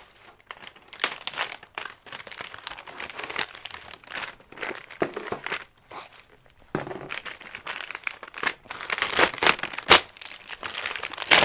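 Packaging on a toy box crinkling and rustling as it is handled and unwrapped, in irregular crackles with a brief pause about six seconds in, then louder.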